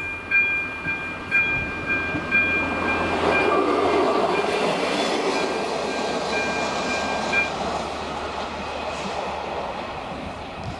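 Level-crossing warning bell ringing in even electronic dings about once a second, stopping about seven and a half seconds in, as the crossing deactivates. A passenger train passes over the crossing at the same time; its running noise swells to a peak about four seconds in and then fades.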